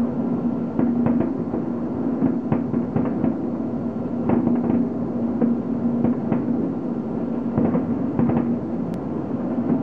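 Fireworks going off without a pause, a dense run of bangs and booms over a constant rumble.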